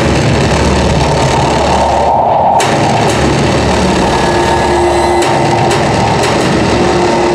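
Indoor percussion ensemble playing a loud, steady, engine-like rumble, with a few sharp drum hits from about two and a half seconds in and a held tone entering near the middle.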